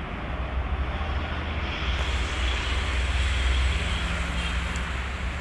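Outdoor road traffic rumble, a steady low drone that swells about two seconds in as a vehicle passes and eases off near the end.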